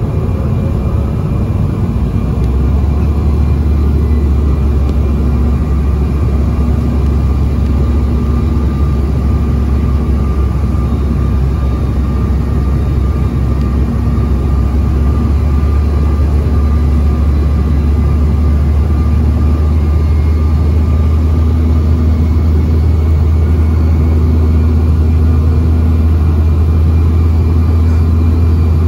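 Steady in-flight cabin noise of a Bombardier CRJ-900 jet: a constant rushing roar with a low drone and faint steady whining tones above it. The low drone grows a little stronger about two seconds in.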